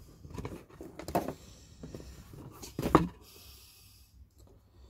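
Cardboard box and packaging handled by hand: a few scattered knocks and scrapes as the camera is lifted out, the loudest about three seconds in, followed by a short rustle.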